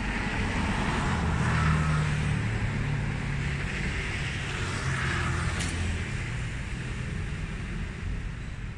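Road traffic: the low hum of engines and the hiss of tyres on tarmac, swelling as vehicles pass about two and five seconds in, then easing off.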